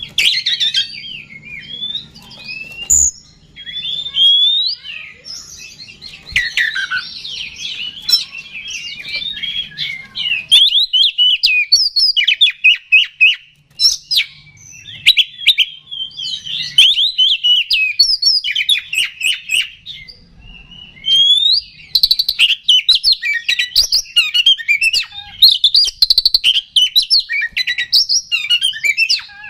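Oriental magpie-robin in excited full song: a loud, rapid, varied run of whistles, trills and chattering notes, with brief pauses about halfway through and again about two-thirds in.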